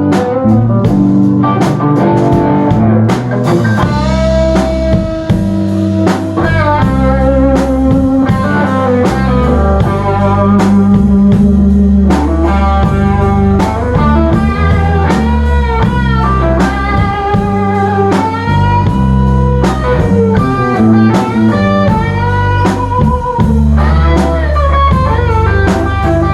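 Live blues-rock band playing an instrumental break of a slow ballad: a lead guitar solo of held notes that bend and waver, over drums and a steady low accompaniment.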